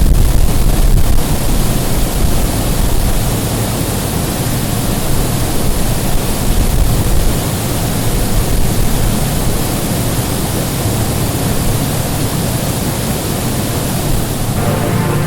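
Steady rushing roar of falling water, like a waterfall. Music with sustained pitched tones comes in near the end.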